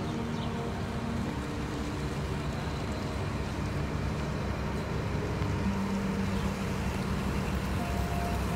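Engine running at a steady low drone over general outdoor noise, its hum shifting slightly in pitch now and then.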